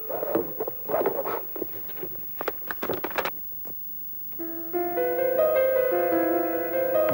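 A quick run of clicks and rustles, like papers and folders being handled in a drawer, for the first three seconds. Then, after a short lull, background music enters with held keyboard chords.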